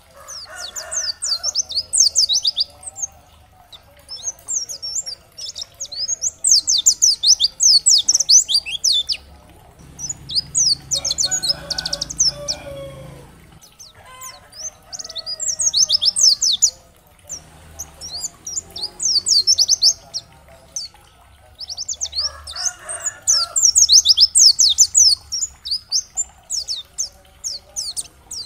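White-eye (pleci) singing in bouts of rapid, high-pitched twittering, each lasting a few seconds with short pauses between, over a fainter, lower warbling and a steady low hum.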